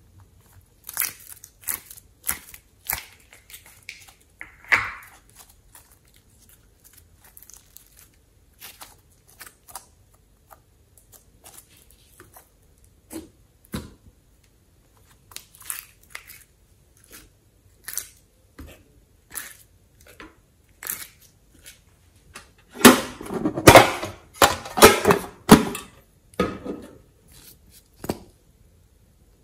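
Hands handling soft modelling clay pieces and setting them into a glass dish: scattered soft taps, clicks and crackles. A few seconds before the end comes a louder spell of crackling, tearing handling noise.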